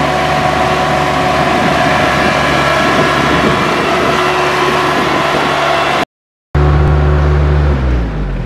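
Compact tractor engine running steadily as it drives with a loaded front-end loader. It drops out for about half a second about six seconds in, comes back louder and lower, then falls in pitch and fades near the end.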